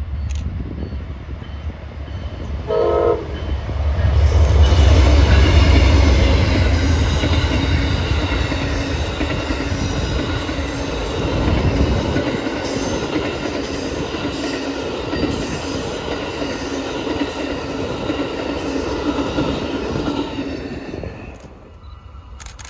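Amtrak passenger train passing close by: a brief horn note about three seconds in, then the heavy low rumble of the locomotive going past, followed by the passenger cars rolling by with a steady wheel clatter and rush of air that drops away near the end.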